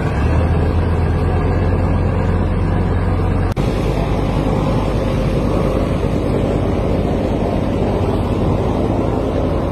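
Boat engine running steadily with a strong low hum; the sound changes abruptly about three and a half seconds in, to a steadier, fuller noise.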